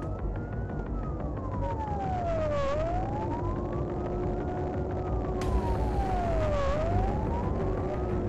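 Fire engine siren on a slow wail, rising and falling about every four seconds. It is heard from inside the truck's cab over the engine and road noise.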